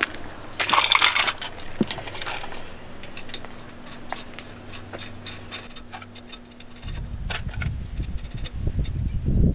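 Steel lug nuts jangling and clicking as they are handled and threaded by hand onto a trailer wheel's studs: a loud metallic jangle about a second in, then scattered light clicks. A low rumble comes in near the end.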